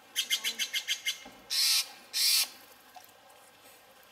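Steller's jay calling: a quick run of about nine harsh notes, then two longer harsh squawks.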